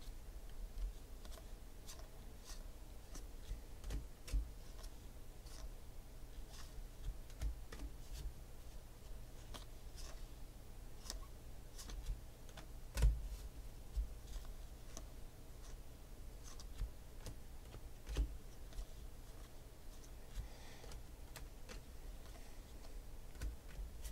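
Glossy 2016 Panini Phoenix football cards being flipped through by hand: scattered light clicks and slaps of card against card. A few louder knocks come through, the loudest about halfway through.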